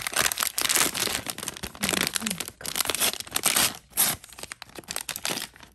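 A small printed plastic packaging bag being torn open and crinkled by hand, in a run of loud, uneven crackling bursts.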